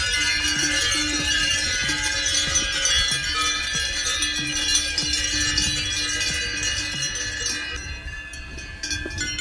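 Many cowbells clanging irregularly on a herd of trotting cows, their rings overlapping and thinning out near the end, over a steady low rumble.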